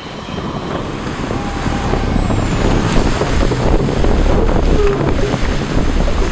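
Wind buffeting the microphone and water rushing past a sailing yacht under way: a loud, steady rumble and hiss that fades in at the start.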